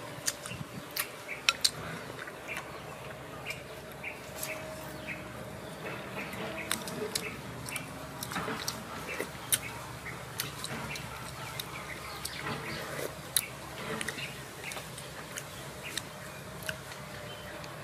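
Someone eating soup: a metal spoon clinking and scraping in a ceramic bowl, with slurping and chewing, heard as many small sharp clicks throughout.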